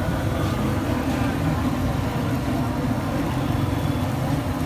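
Battered fish deep-frying in a large wok of hot oil, a steady sizzle, over a constant low rumble.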